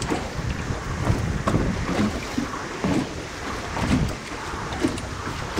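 Wind buffeting the microphone over the wash of waves against a small boat's hull, with a few short knocks.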